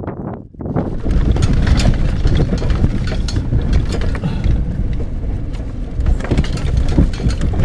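A vehicle driving over a rough, rocky dirt track, heard from inside the cab: a steady low rumble with the body rattling and knocking over the rocks. It starts about a second in, after a moment of wind on the microphone.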